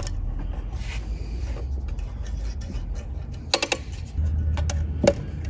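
Thin 0.032-inch stainless safety wire being fed through a drilled bolt head on an alternator bracket: low rubbing and scraping from the hands and wire, with a quick cluster of sharp metallic clicks about three and a half seconds in and a single click near the end.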